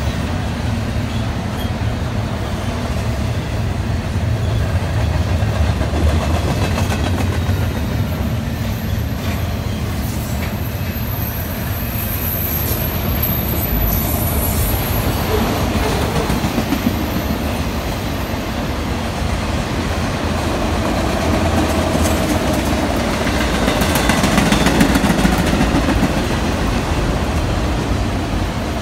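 Freight train of double-stack container well cars and autorack cars rolling past close by: a steady rumble and rattle of steel wheels on the rails, with scattered clacks.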